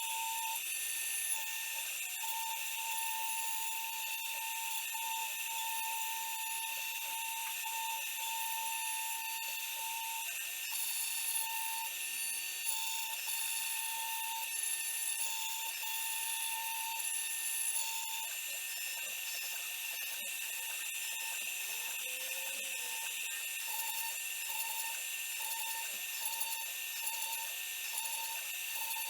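CNC router running a cutting job: the spindle whines steadily while the motors driving the axes add a mid-pitched tone that keeps switching on and off and shifting pitch as the tool moves.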